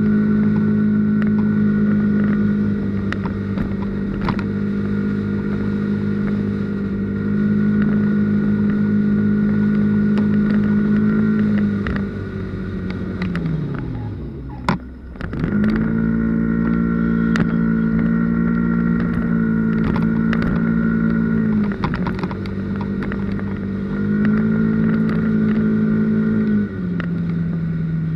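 Motorcycle engine running at a steady cruising note. About halfway through the throttle is rolled off and the engine note falls away to near idle, slowing for an intersection. There is a sharp click at the low point, then the engine picks up again and holds steady, with two shorter drops in pitch later.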